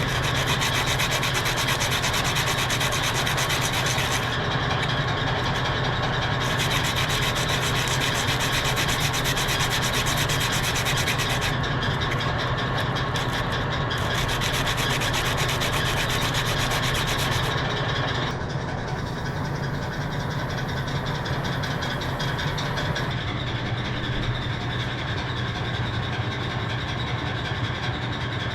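Power tool scouring rust and grime off a metal part, a harsh continuous scrubbing noise over a steady motor hum. The scrubbing changes character several times as the tool moves over the part, and it eases slightly after about 18 seconds.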